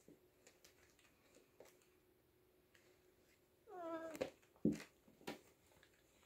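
A kitten meows once, a short cry that starts high and drops in pitch, about three and a half seconds in. It is followed by three sharp knocks and thumps as the kittens tussle on the carpet mat.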